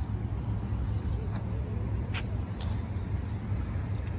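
City street ambience: a steady low rumble of traffic, with faint voices about a second in and two short clicks a little after two seconds.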